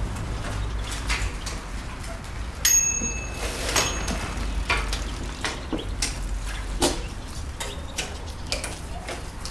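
Bicycle handling and riding sounds: irregular clicks and rattles over a low rumble. A single bicycle bell ring comes about a third of the way in.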